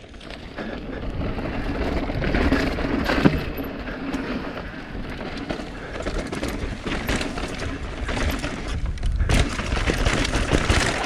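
Mountain bike riding over a rough dirt trail: tyre noise on dirt with rapid, irregular rattling and clattering from the bike.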